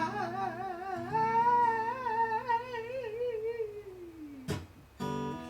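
A wordless hummed or sung note with a wide wavering vibrato, gliding down and fading away about four seconds in, over a ringing acoustic guitar chord. A sharp knock follows, then the guitar strumming starts up again near the end.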